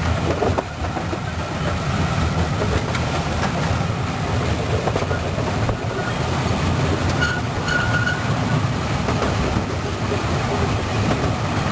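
Wulai trolley train rumbling and rattling steadily along its narrow-gauge track, with a brief high wheel squeal a little past halfway.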